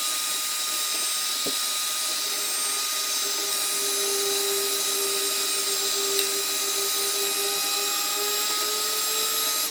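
Electric heat gun running steadily, a fan hiss with a faint steady whine, heating the wheel hub so the old bearing can be driven out. It cuts off at the very end.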